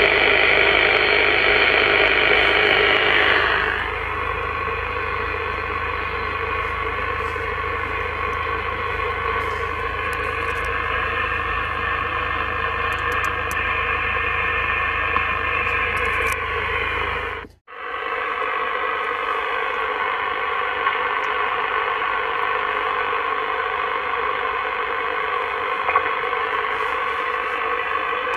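CB radio receiving static on the 27 MHz band in upper sideband, a steady hiss from its external speaker with no clear station coming through. The hiss is louder for the first few seconds, then settles lower and cuts out for a moment about two-thirds through.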